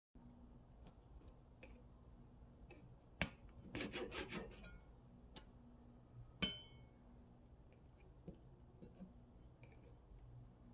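Kitchen knife and hands working a cleaned squid on a plastic cutting board: scattered light clicks, a short run of quick cutting strokes about four seconds in, and a sharp knock with a brief ring a little past six seconds, over a faint steady hum.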